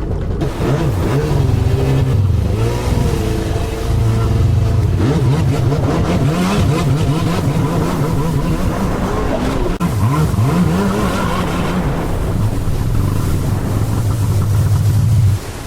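Yamaha Superjet stand-up jet ski's 701 two-stroke twin engine revving up and down. The pitch dips briefly about ten seconds in, is held high for a few seconds, then drops off near the end.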